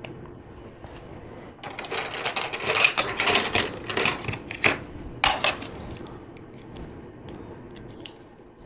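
Plastic LEGO Technic pieces clattering and clicking as they are handled and fitted together, with a dense burst of rattling clicks from about two to five and a half seconds in and a few sharper clicks near its end.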